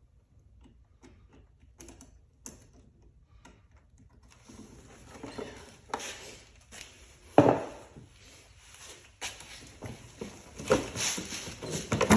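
Plastic air-intake duct and airbox being worked loose and pulled off a car engine. There are faint clicks at first, then handling rustle with several loud knocks and clunks in the second half.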